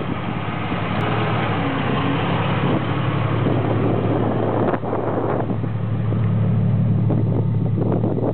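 Jeep Grand Cherokee ZJ's engine running steadily at low speed while the vehicle crawls over rough ground, flexing its axles. It gets a little louder about five seconds in as the vehicle moves off over the camera.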